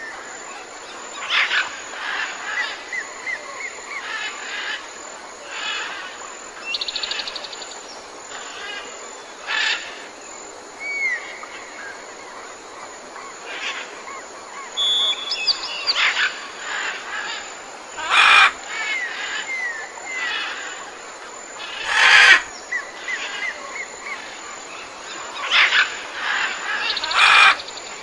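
Jungle soundscape: various birds calling, with runs of short falling chirps and several louder, rougher calls about two thirds of the way through and near the end, over a steady high-pitched insect drone.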